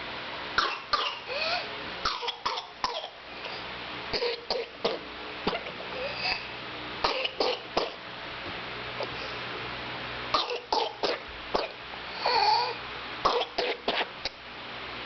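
Infant coughing in a whooping cough (pertussis) paroxysm: clusters of quick, sharp coughs come one after another with only brief pauses, mixed with a few short strained vocal sounds.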